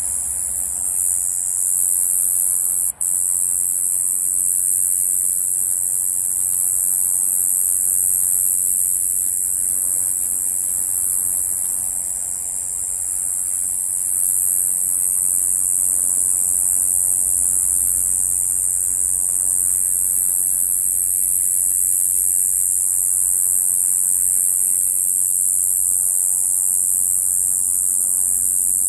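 A male small conehead katydid (꼬마여치베짱이) singing: a continuous, high-pitched buzzing song, steady in level, with a momentary break about three seconds in.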